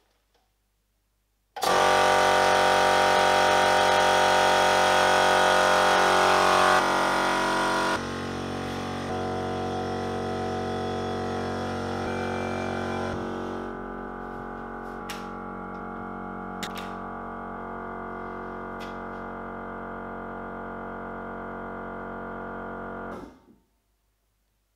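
A 1500 W electric air compressor starts suddenly and runs with a steady, loud hum. It becomes quieter in two steps, about six seconds in and again about eleven seconds in, as it is shut into its insulated enclosure and the door is put on. It cuts off near the end.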